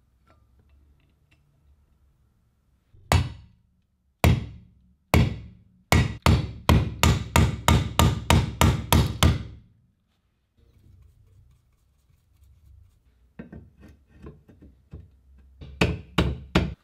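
Hammer blows struck through a cloth pad onto a metal drill-stand part: three single blows, then a quick run of about a dozen blows at roughly three a second. Near the end come a few lighter knocks and clicks.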